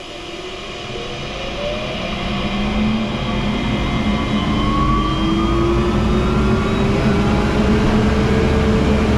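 Oneida 5 hp Dust Gorilla Pro SMART Boost cyclone dust collector starting up on its slow-start motor: a whine and rush of air that rises in pitch and grows louder over the first few seconds, then keeps climbing slowly in pitch until it settles near the end into a loud, steady run.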